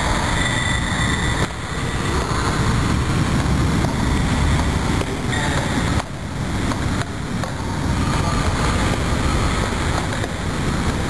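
Steady, loud rushing background noise, with abrupt dips in level about one and a half, six and seven seconds in.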